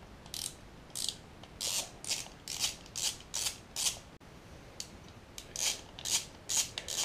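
Small socket ratchet clicking in short strokes, about two a second, as a 7 mm bolt on an alternator's rear cover is unscrewed. The strokes pause for about a second and a half after the middle, then a few more follow.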